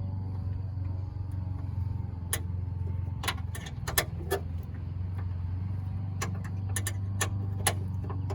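Hand wrench clinking against a bolt and metal bracket while tightening by hand: about a dozen sharp, irregular metal clicks, over a steady low hum.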